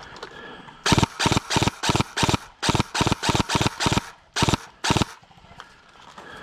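Airsoft gun firing a quick run of about fourteen semi-automatic shots, three or four a second, in three strings broken by brief pauses.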